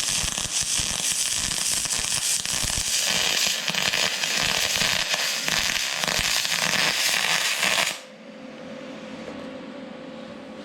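MIG welding aluminum with a spool gun feeding 4043 .035 wire: a steady, loud crackling hiss from the arc that cuts off sharply about eight seconds in, leaving a quieter steady machine hum.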